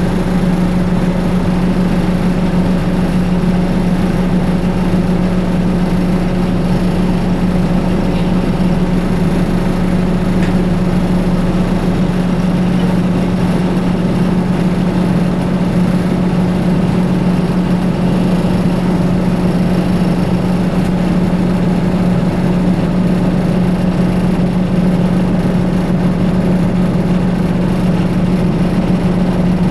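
Diesel engine of a 2004 New Flyer D60HF articulated bus, a Detroit Diesel Series 50 EGR, running steadily with an even low drone that does not change pitch or level.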